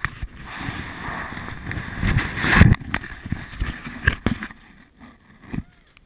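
Action camera being handled against a jacket: a rushing rub that swells for about two seconds, then several separate knocks.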